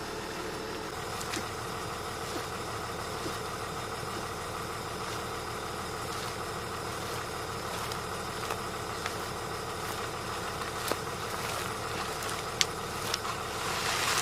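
Large excavator's diesel engine running steadily, with a few sharp knocks near the end.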